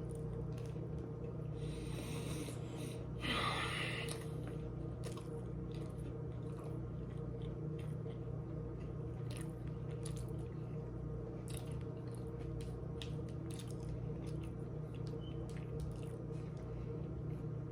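Close-up chewing and small mouth clicks of someone eating a Subway tuna footlong sandwich, over a steady background hum. A short, louder noisy burst comes about three seconds in.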